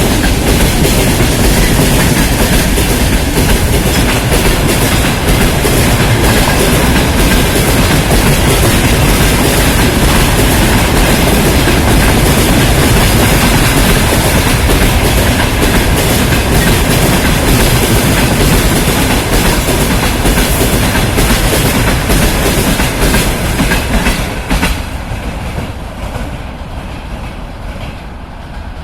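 Freight train wagons passing at speed, their wheels clattering loudly over the rail joints in a rapid, continuous knocking; about 24 seconds in the sound drops away and keeps fading.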